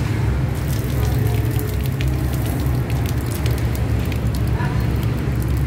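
Water spraying from a Bamboo B-2in1 knapsack sprayer's hand-pumped spray gun, pattering onto cardboard and pavement. From about half a second in it makes a run of fine crackling droplet hits, over a steady low rumble.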